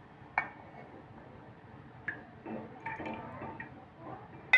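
Cooking oil poured into a hot pan on the stove for a tempering, with a few sharp metal clinks of utensils against the pan.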